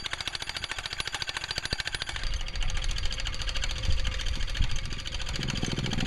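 Rapid, even mechanical hammering, about ten blows a second, from a power tool at work on a construction site. A low rumble joins about two seconds in, and the hammering cuts off suddenly near the end.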